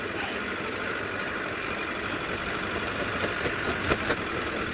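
Safari game vehicle's engine running steadily as it is driven along a rough track, with a few knocks and rattles about three to four seconds in.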